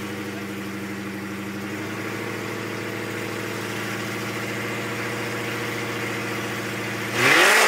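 Car engine idling steadily with a regular lope, then about seven seconds in it revs up sharply and loudly for a moment.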